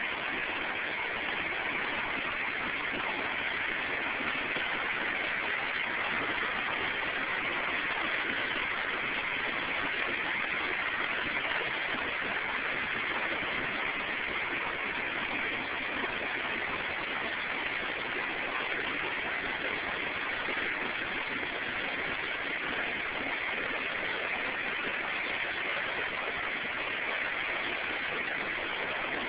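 A river swollen by a tropical storm, its floodwater rushing steadily with an even noise that does not change.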